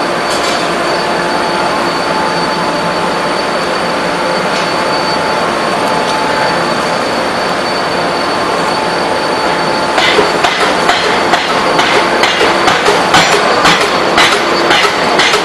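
Steam-air forging hammer shop running with a steady loud machine noise carrying a few steady tones. About two-thirds of the way in, the hammer starts a quick, uneven series of blows on hot steel, several a second.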